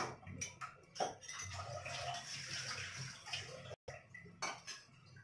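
Water running for about two and a half seconds, starting about a second in, with a few sharp clicks and knocks before and after it.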